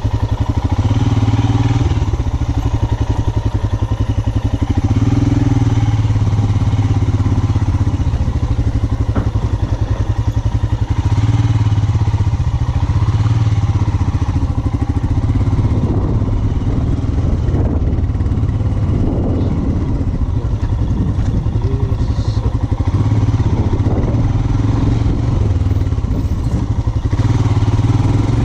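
Royal Enfield Himalayan's 411 cc single-cylinder engine running under load as the motorcycle is ridden off-road, its beat swelling and easing every few seconds with the throttle.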